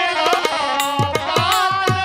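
Live instrumental dance music from a folk-theatre band: hand-drum strokes with low notes that fall in pitch, several a second, under a sustained, wavering melody line.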